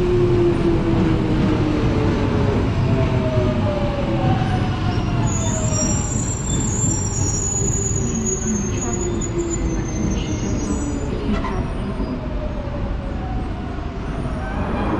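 London Underground 1996 Stock Jubilee Line train slowing to a stop at the platform. A traction motor whine falls steadily in pitch over the rumble of wheels on rail, and a high-pitched squeal is heard from about five to nine seconds in. The sound eases off as the train halts.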